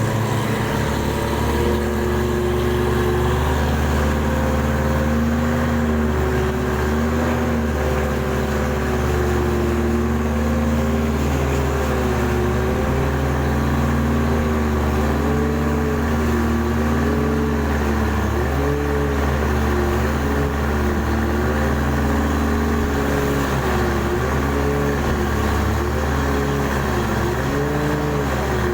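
Engine of a mud-suction dredging boat running steadily with a deep hum, over a whine that wavers up and down in pitch, more rapidly in the second half.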